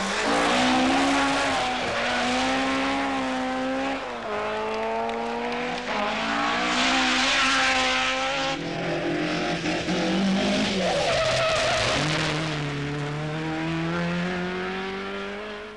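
Ford Escort Mk2 rally car's engine at full throttle. Its note climbs through each gear and drops back at the shifts, about four times, with tyre noise and squeal on tarmac.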